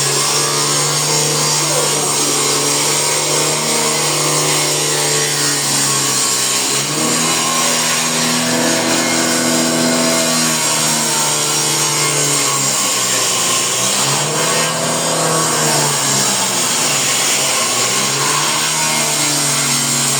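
Power saw cutting wood: a loud motor whine over a steady hiss, its pitch dipping and recovering several times as the blade is loaded.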